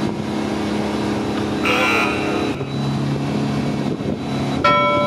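Tow boat's engine running steadily under load as it pulls a wakeboarder, with water rushing in the wake. About two seconds in there is a brief burst of noise, and near the end a loud steady held tone cuts in suddenly.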